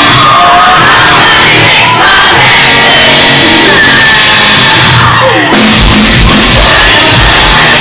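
Live hard rock band playing at full volume, heavily overloaded near full scale, with a woman singing over distorted guitars. A steady low drum beat comes in about three quarters of the way through.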